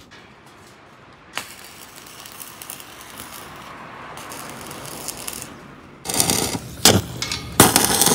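Stick (manual arc) welding on a steel tube frame: about six seconds in the electrode is struck and the arc burns with a loud, dense hiss, broken by two sharp snaps as it catches. Before that there is only a faint hiss and a single click.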